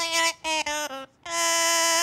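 Yellow-naped Amazon parrot singing in a clear, human-like voice: three short sung notes, then one long note held at a steady pitch.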